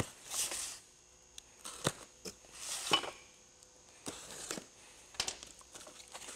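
Small cardboard parts box being handled and opened by hand: flaps and packing rustling and crinkling in short irregular bursts, with a few light clicks and knocks.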